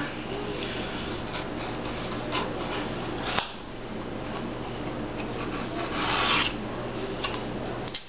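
Edge beveler scraping along the edge of a leather sheath, trimming off a thin strip of leather in short strokes. The strongest stroke comes about six seconds in.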